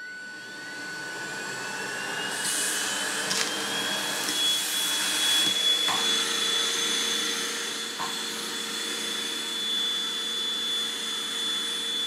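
Cecotec Conga Popstar 4070 H2O cordless vacuum in handheld mode, its motor whine rising over the first few seconds and then running steady and high. A few clicks and a short burst of hiss come as it sucks up birdseed, instant coffee and textured soy chunks through its nozzle, where the large soy chunks jam. It is switched off at the end and the whine winds down.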